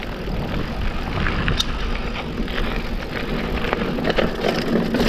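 Mountain bike riding down a rocky dirt trail: a steady rush of tyres rolling over dirt and rock, with scattered clicks and knocks from the bike rattling over the bumps.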